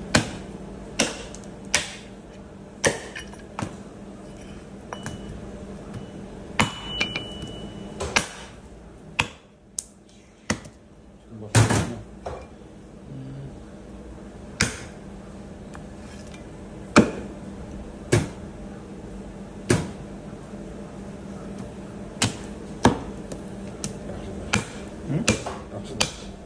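Meat cleaver chopping through trotters on a thick wooden butcher's block: sharp chops at an irregular pace, roughly one every second or two, over a steady low hum.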